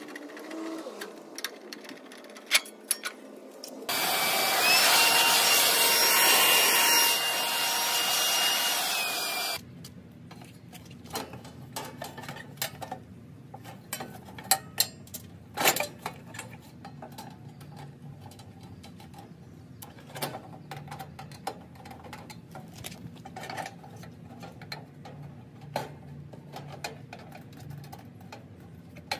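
A power drill/driver runs for about five seconds, its motor whine rising as it spins up and dropping as it stops. Scattered clicks and knocks come before and after it as the condenser's sheet-metal panel is handled.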